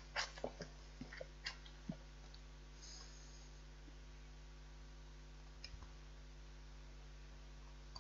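A knife scraping fridge-cold, hard butter onto a slice of bread: a quick run of light scrapes and clicks in the first two seconds, then a few faint ones later, over a low steady hum.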